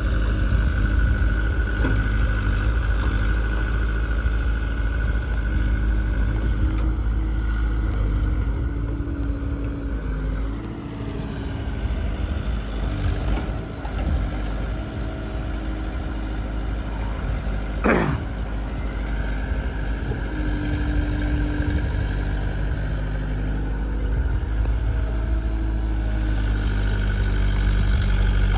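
Heavy diesel machinery running continuously, from the backhoe loader and the tractor: a loud low rumble with a steady high whine that fades for several seconds mid-way and then returns. About eighteen seconds in, a brief sharp tone falls steeply in pitch.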